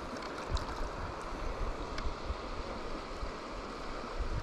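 Shallow creek water running steadily, with wind buffeting the microphone in low thumps and a few faint ticks.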